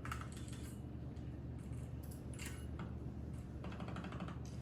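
Several short clusters of quick, faint clicks and rattles over a steady low hum.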